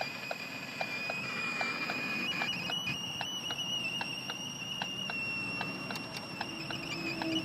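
Steady high-pitched electronic squeal inside a Ford Focus Mk3's cabin, one held tone with a fainter overtone, of a cause the driver cannot trace; it persists after the ignition is switched off. A light regular ticking, about two or three a second, runs under it.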